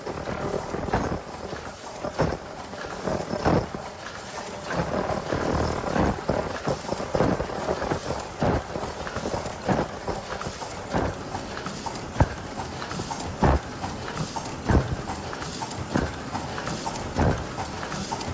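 Automatic three-layer disposable face mask making machine running, with a continuous clatter of mechanical clacks and knocks. In the second half, a loud clack repeats about every second and a quarter.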